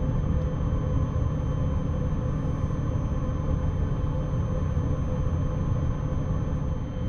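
Steady low rumble of a passenger train rolling slowly through a station, heard from inside a sleeping-car compartment, with a thin steady high whine above it.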